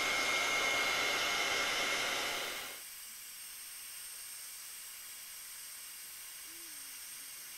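Craft heat gun blowing hot air onto shrink film, a steady blowing noise with a thin high whine. It drops much quieter a little under three seconds in.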